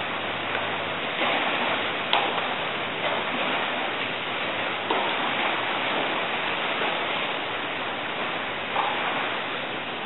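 Steady rushing and washing of seawater around the pier pilings, with a sharp tick about two seconds in and a couple of brief louder swells.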